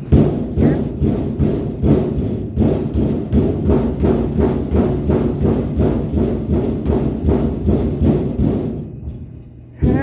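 A small child's fists drumming rapidly on the sheet-metal panel of a washing machine like a speed bag, about four hollow thumps a second, with a brief break a couple of seconds in and stopping shortly before the end.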